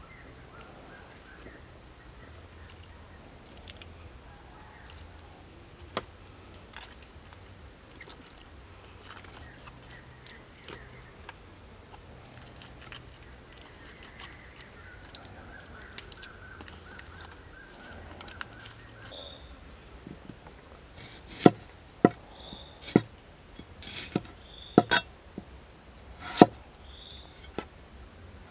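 Quiet food handling at first. Then a high, steady insect chirring comes in, and a steel cleaver chops shallots on a chopping board: about eight sharp chops at irregular intervals, roughly one a second, in the last third.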